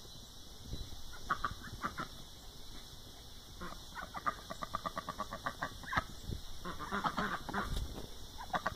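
White domestic duck quacking in runs of short, rapid quacks, several a second.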